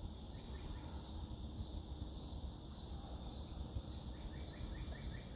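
Steady outdoor insect chorus, a high pulsing trill of crickets, with a low rumble underneath. A quick run of faint chirps comes near the end.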